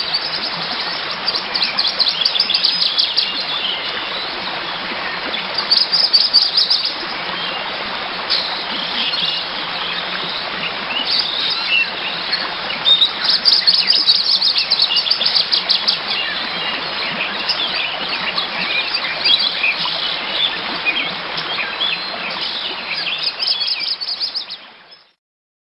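Birds chirping and singing over a steady background hiss, with bursts of rapid high trills coming and going, then fading out near the end.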